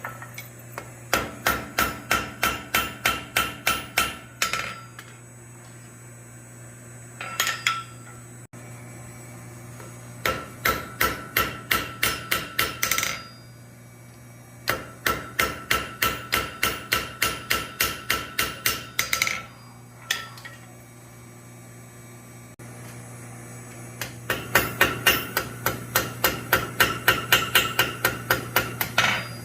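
Blacksmith's hammer striking steel on an anvil in several runs of quick, even blows, about four a second, with the anvil ringing under each run; a steady low hum underneath.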